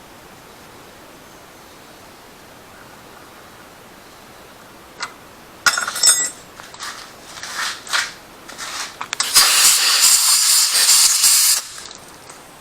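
Compressed-air blow gun hissing in several short blasts, then one long blast of about two seconds, blowing chips out of a freshly tapped thread hole in a cylinder head.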